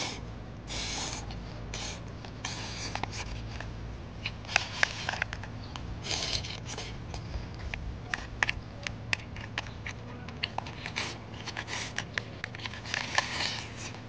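A person eating close to the microphone: repeated slurps as strips of food are sucked in, and chewing with many sharp, wet clicks and smacks.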